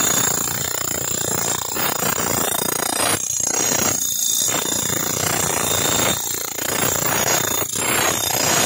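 Hand-held electric power tampers running with a steady, dense vibrating clatter as they pack ballast under the rail sleepers, easing off briefly a few times.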